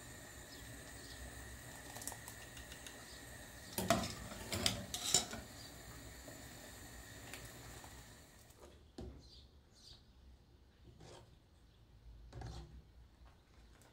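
A long metal spoon scraping and knocking against the inside of a stone-coated cooking pot as milk is stirred, with a quick run of louder clacks about four to five seconds in and fainter taps later.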